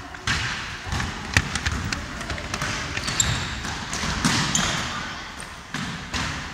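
Basketball being dribbled on a wooden gym floor: irregular, sharp bounces, with a few brief high squeaks about three and four seconds in.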